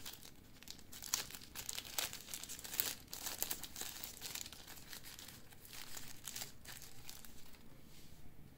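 Packaging being handled, crinkling and rustling in a quick, uneven run of crackles that dies down near the end.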